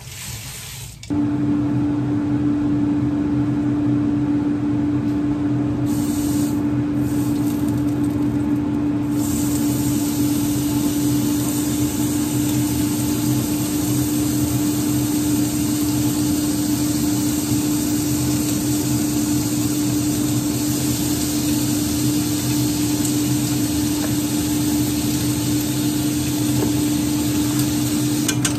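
Kitchen range hood exhaust fan switched on about a second in, then running steadily: a constant hum over a rush of air.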